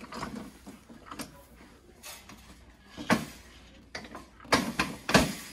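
Knocks and clanks of a hospital bed's metal frame and headboard as the frame is lifted and fitted into the headboard's brackets: a scatter of sharp knocks, the loudest in a quick cluster near the end.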